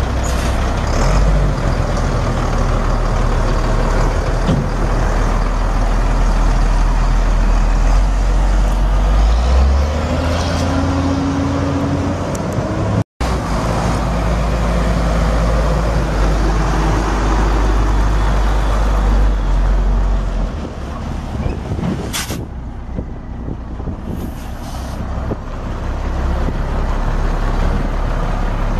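International DT466 7.6 L inline-six diesel in a 1991 International 4900 dump truck, running with a deep steady drone. It revs up briefly about ten seconds in. A short, sharp noise comes about 22 seconds in.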